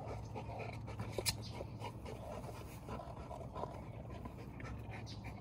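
Golden retriever panting while lying down, with scratchy rustling and a sharp click about a second in.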